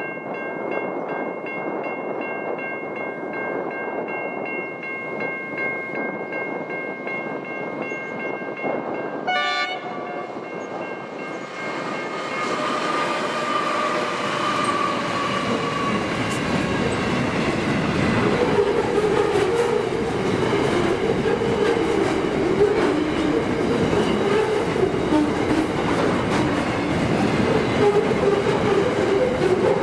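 Level crossing's Safetran electronic bell ringing steadily, then a freight train hauled by Pacific National NR-class diesel locomotives arriving about halfway through and passing. The wheels clatter as the wagons roll past, and the train noise grows louder and drowns out the bell.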